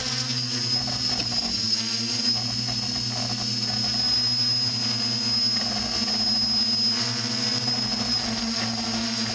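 Multirotor drone's electric motors and propellers whining steadily, heard close up from the camera on board as the drone lifts off and climbs.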